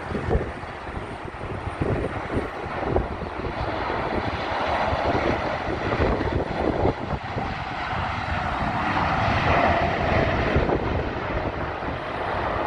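Boeing 737 jet engines on approach: a broad rushing rumble that grows louder and is loudest about two-thirds of the way in. Gusts of wind buffet the microphone throughout.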